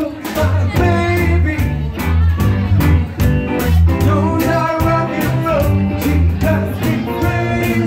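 Live band playing amplified in a small room: a male singer's voice over guitar, bass and drums, with a steady beat of drum and cymbal hits several times a second.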